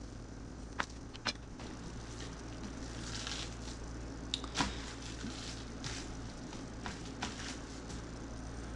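Quiet handling of a raw chicken breast on a plastic-wrap-covered cutting board: a few light clicks and knocks and a soft rustle of plastic wrap as the breast is cut and opened flat, over a low steady hum.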